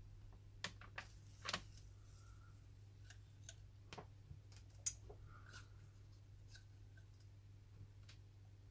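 Scattered light clicks and taps of small tablet parts and tools being handled, with one sharper click about five seconds in, over a low steady hum.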